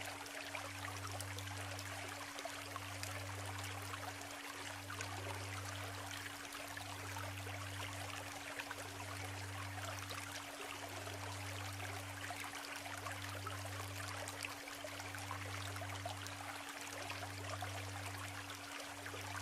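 Shallow stream of the Isuzu River babbling steadily over stones, with a steady low tone and a deeper tone underneath that swells and breaks about every two seconds.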